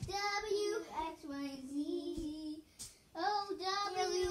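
A child singing an unaccompanied, wavering melody in two phrases with a short break between them.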